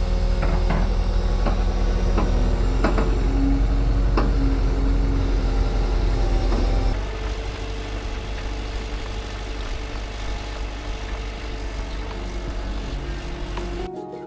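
A heavy machine's engine running steadily, with scattered knocks and clanks over it. About seven seconds in the sound suddenly drops to a quieter, steadier engine rumble.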